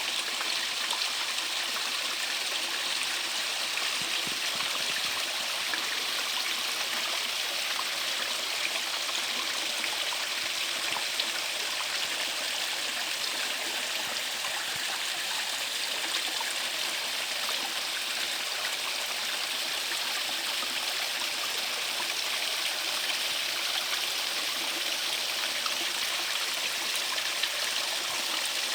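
Mountain valley stream running steadily over rocks, a constant rushing splash with small gurgles and drips.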